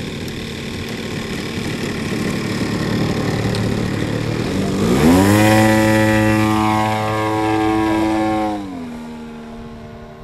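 Yak 54 model aerobatic plane's engine and propeller on the takeoff run: a rough running sound at first, then a pitched engine note that sweeps up about halfway through and holds loud and steady. Near the end the pitch falls to a lower steady tone as the plane climbs away.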